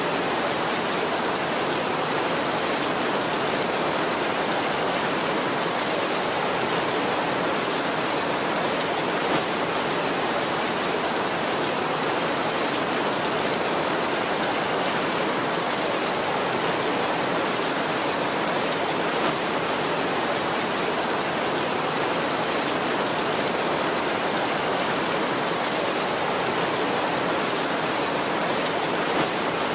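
Steady heavy rain: an even, unbroken hiss with no thunder.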